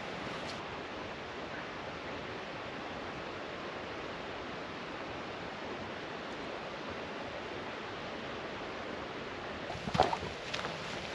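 Steady rushing of distant falling water heard through the woods. Near the end come a few footsteps on a dirt trail strewn with leaves and gravel.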